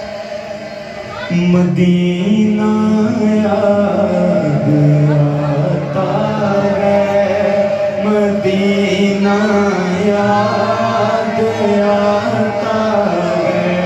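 Men singing a naat unaccompanied into microphones, a lead voice with a second voice holding long sustained notes beneath it. The singing gets louder about a second in and the pitch steps between long held notes.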